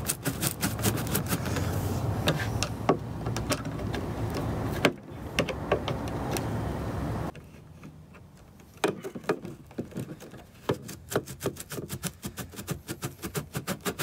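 Rapid clicking, a few clicks a second, as a flathead screwdriver turns the clamp screw on a plastic snorkel head to loosen it. A steady low rushing noise lies under the clicks at first and stops suddenly about seven seconds in.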